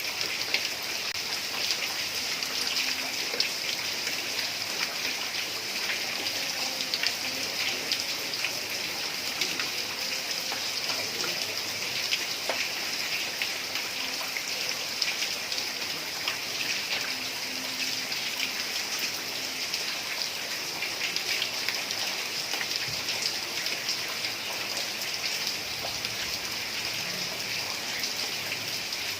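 Heavy rain on a tiled roof: a steady hiss dotted with many small drop taps.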